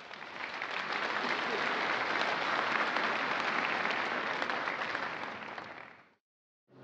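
Large audience applauding in a hall, a dense patter of many hands that swells over the first second, holds steady, and then fades out.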